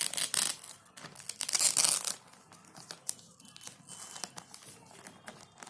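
Packaging being torn and crinkled open to take out a graphic tablet: two loud ripping, crinkling sounds in the first two seconds, then quieter rustling and handling clicks.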